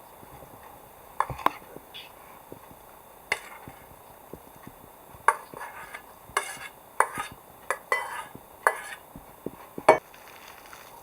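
Cooking utensils clinking and knocking against pots and dishes: a dozen or so irregular clinks, coming thicker in the second half.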